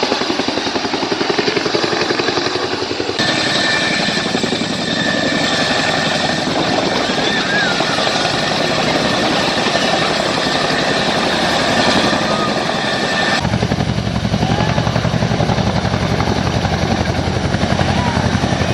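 Boeing CH-47 Chinook helicopter flying overhead: its tandem rotors beat rapidly over the whine of its turbine engines. The sound changes abruptly twice, about three and thirteen seconds in.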